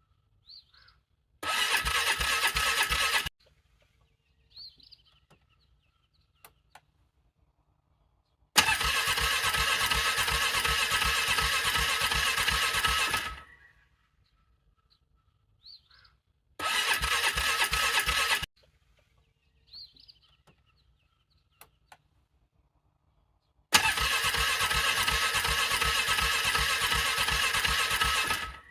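ATV engine being cranked over by its starter in freezing cold, struggling to start: four tries, two short and two about five seconds long, each a rapid even chugging that stops without the engine catching.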